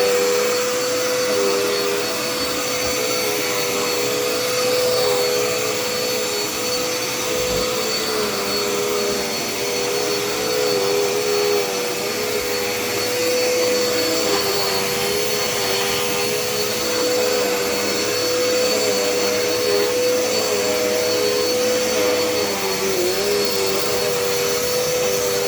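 Dirt Devil Endura Reach upright vacuum cleaner running steadily: a constant motor whine over the rush of its airflow, with a second tone just below it that wavers slightly.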